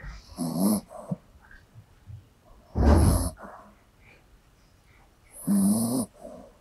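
Small old dog snoring in deep sleep: three snores about two and a half seconds apart, the middle one the loudest.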